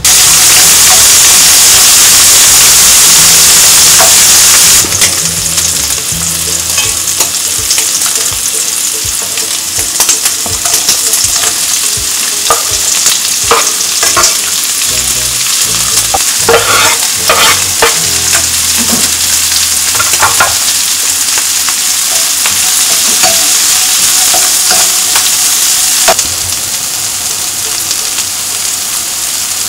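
Peanuts, sliced onion and prawns sizzling in hot oil in a wok, loudest for the first few seconds and then frying steadily. A spatula scrapes and clicks against the pan as the food is stirred.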